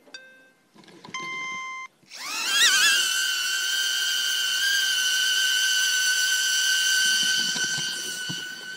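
HoverAir X1 palm-sized quadcopter drone: a short beep, then a longer beep of about a second, then its propellers spin up in a rising whine that settles into a steady high hover whine. The drone takes off and flies despite its crash.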